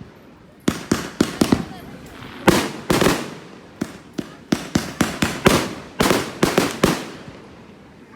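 Aerial fireworks bursting in a rapid string of sharp bangs, well over a dozen. The bangs start after a brief lull, and each one fades out in a short tail.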